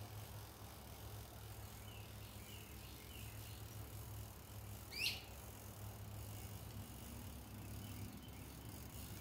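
Birds chirping faintly at a creekside, with one louder, quick rising bird call about five seconds in, over a low steady rumble.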